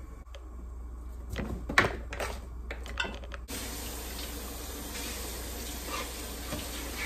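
A few knocks and clinks of a knife and cutting board, then a kitchen tap turns on suddenly about halfway through and runs steadily into the sink while the board is rinsed under it.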